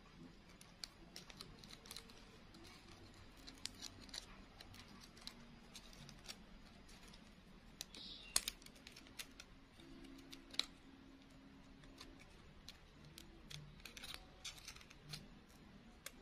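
Faint, scattered small clicks and crackles of fingers handling a clear plastic-sheet flower and its wire stem, with a couple of sharper ticks about eight and ten and a half seconds in.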